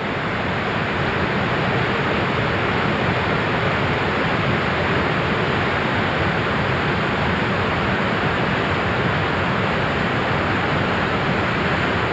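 Waterfall at Lucia Falls: a loud, steady rush of falling water with no change in level.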